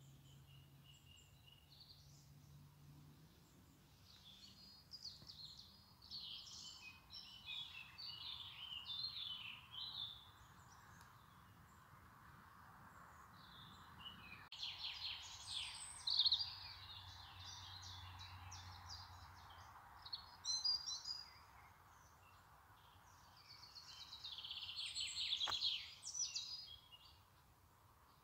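Small birds singing in bursts of high chirping phrases, separated by pauses, over a faint steady hiss.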